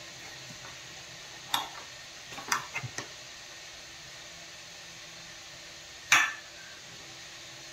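A steel spoon clinks against a metal pot a few times as batter is scooped out. There is a small cluster of clinks around two to three seconds in and one louder clink about six seconds in.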